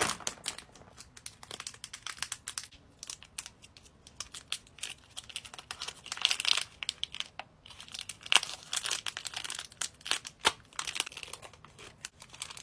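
Thin plastic wrappers on mini toy blind packs crinkling and tearing as they are unwrapped by hand, with a quick run of irregular sharp crackles and louder crinkling stretches partway through.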